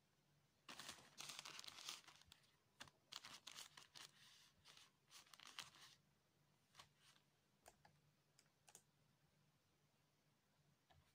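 Faint dry rustling and crinkling of thin lumpia wrappers as rolled spring rolls are picked up and stacked, in bursts through the first half, then a few light taps. A faint steady low hum lies underneath.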